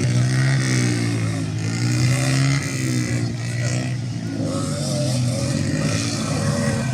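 Several 50cc minibike engines revving together, their pitches rising and falling over one another. A strong steady engine drone drops away about two and a half seconds in.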